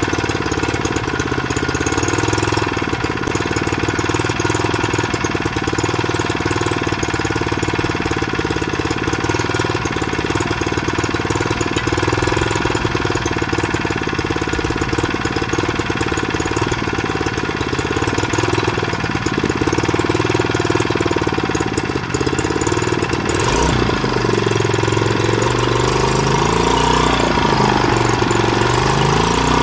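Engine idling steadily while it warms up after a start; in the last few seconds its lower note wavers up and down.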